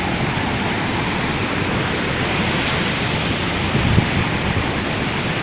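Steady rushing of a large waterfall close by, its spray and wind buffeting the microphone. A brief knock about four seconds in.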